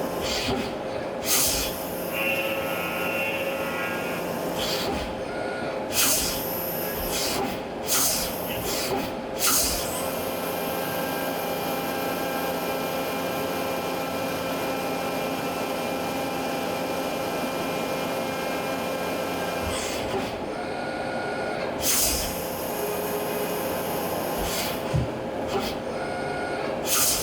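Brother SPEEDIO U500Xd1 machining centre milling aluminium with a side cutter: a steady whine of spindle and cut, broken by several brief loud noises. The tones change about 20 seconds in, as the machine changes over to a thread mill and then an end mill.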